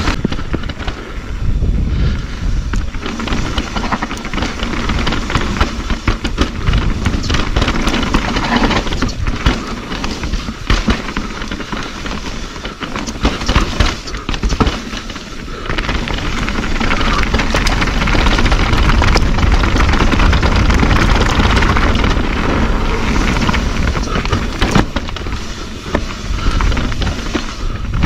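Mountain bike descending rough trail at speed: wind buffeting the microphone, with the bike rattling and clattering over roots and rocks in a steady run of sharp knocks. It grows louder from about halfway through.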